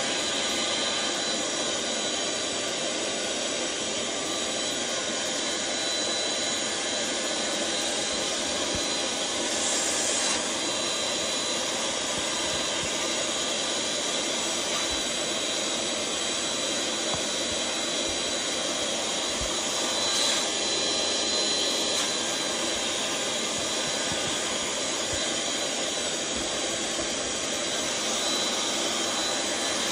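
Electric air pump running steadily with a constant high whine, blowing air through a hose into the valve of a large vinyl inflatable.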